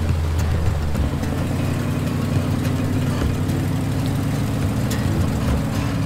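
Heavy off-road wrecker's engine running steadily at low speed under load as it tows a disabled rock buggy on its boom; the engine note shifts about a second in.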